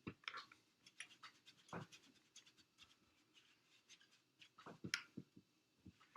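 Faint scratching, rustling and tapping of cloth being handled, folded and pressed into a crease, in short irregular bursts.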